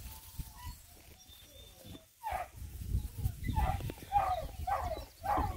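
Dogs whining and yelping in a quick run of short, wavering cries from about the middle on. These are the boys complaining because they want out.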